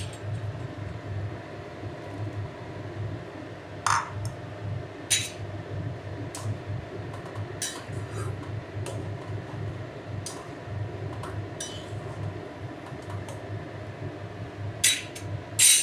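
Metal ladle clinking against an aluminium kadai in scattered sharp knocks as boiled potatoes are put into simmering pea curry, over a steady low hum.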